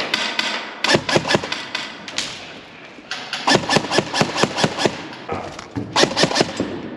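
Airsoft guns firing in three short bursts of rapid shots, about a second in, midway and near the end, the middle burst the longest.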